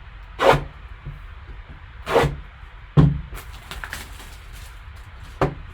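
Handling noise from a sealed cardboard trading-card box being picked up and turned over on a table. There are a few short swishes and scrapes, a sharp knock about three seconds in, and light ticks and taps just after it.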